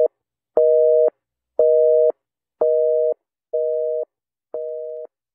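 Telephone busy signal: a steady two-note tone beeping on and off about once a second, the last few beeps growing fainter.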